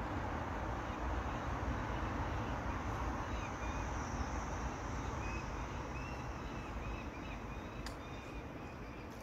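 Steady outdoor noise, mostly wind buffeting the microphone, with faint bird chirps from about three seconds in and a single sharp click near the end.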